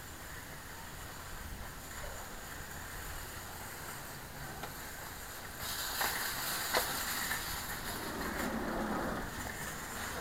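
Steady rushing noise and rubbing on a small keychain camera's microphone as it is carried on foot. The noise grows louder and brighter about six seconds in, with a couple of sharp clicks.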